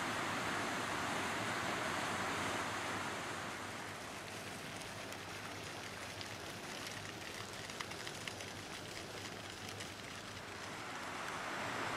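Fountain water splashing steadily. About three seconds in, the full rush of the cascade fountain gives way to a quieter single jet falling into its pool, with light scattered splashes.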